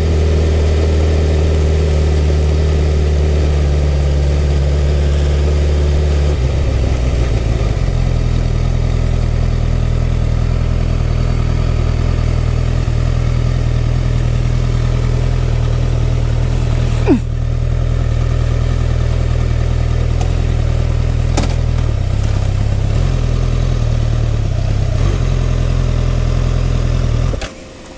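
Honda CBR1000RR's inline-four engine running at low speed, then changing to a steady idle about six seconds in as the bike stops. It idles for some twenty seconds and cuts off suddenly near the end as it is switched off.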